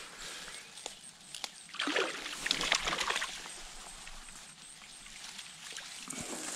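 Water splashing and sloshing in a shallow trout stream, with a cluster of louder splashes about two to three seconds in and a few sharp ticks, over a steady trickle.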